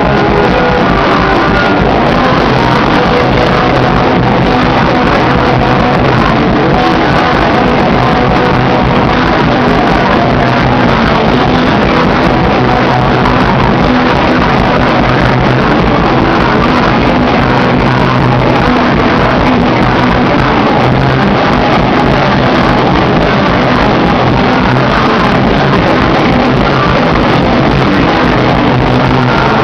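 Live rock band playing a loud, guitar-driven song, recorded close up with the sound dense and unbroken.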